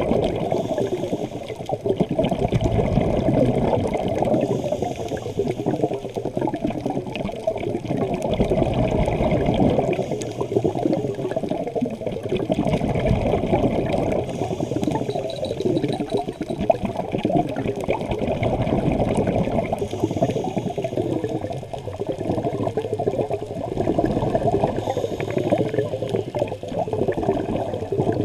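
Muffled underwater bubbling and rushing from scuba divers' exhaled regulator bubbles, heard through a GoPro's waterproof housing. It is steady and dense, with small swells every few seconds.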